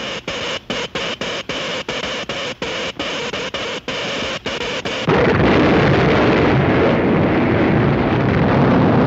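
Cartoon sound effects: a hissing electric crackle that stutters on and off for about five seconds, then a sudden loud, deep rumble of the electric earthquake that holds on.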